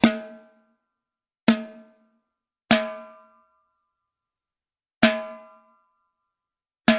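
Single drum hits struck one at a time, five in all at uneven gaps. Each hit rings with a clear pitch and dies away in about half a second.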